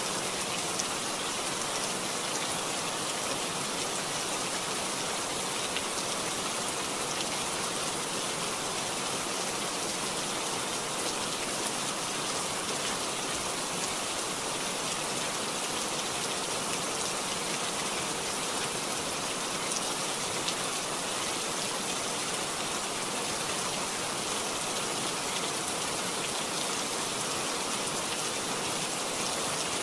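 Steady hiss of heavy rain, mixed with the rush of muddy floodwater pouring down an eroded slope.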